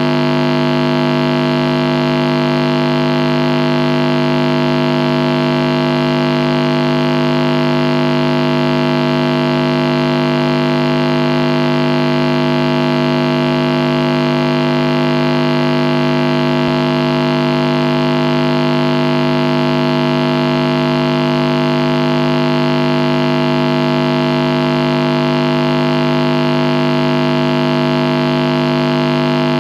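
Static from a Marshall amplifier: a steady buzzing hum of several held tones over an even hiss, unchanging throughout.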